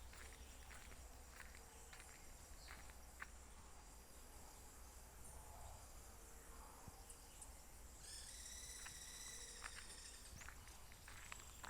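Faint rural outdoor ambience: scattered footstep-like crunches and light clicks over a low steady rumble, with small chirps from wildlife. About eight seconds in, one buzzy, wavering call rises above the rest for about two seconds, then stops.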